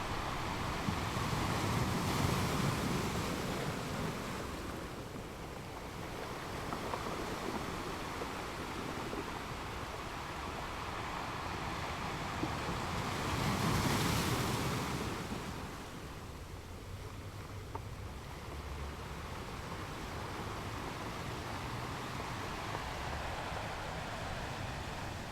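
Small ocean waves washing onto a beach, with two surges of surf, the stronger about halfway through, over a steady wash.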